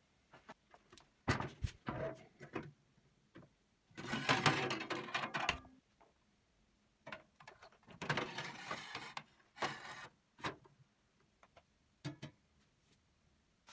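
Sheet-metal parts of a small electric skewer grill being handled and fitted together: a few clanks and knocks, two longer rattling scrapes, then more short knocks.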